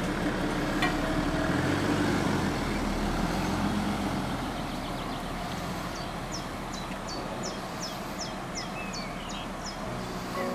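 A car passes close by and drives off over the level crossing. Its engine and tyre noise is loudest a couple of seconds in, then fades as it moves away.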